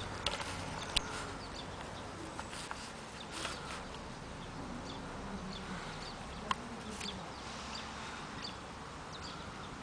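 Faint outdoor ambience with scattered short high chirps and clicks over a low background hum.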